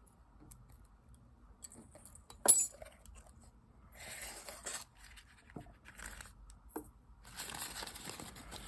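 A pocket knife being handled: one sharp click about two and a half seconds in, then stretches of rustling and scraping with a few small clicks.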